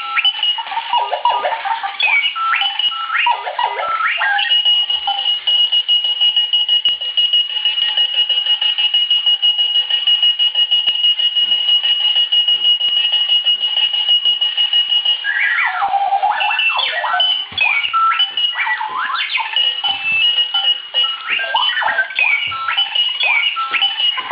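Clocky runaway alarm clock sounding its alarm: fast electronic chirps and beeps that sweep up and down in pitch, then one long steady high tone for about ten seconds from about four seconds in, then more chirping and warbling.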